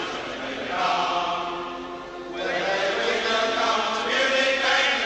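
Football crowd chanting in unison, a sung terrace chant in two phrases that swell and ease off, with a brief dip between them.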